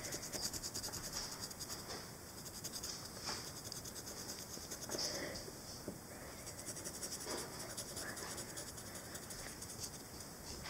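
Sharpie permanent marker scratching over the surface of a painted rock in quick, repeated back-and-forth colouring strokes.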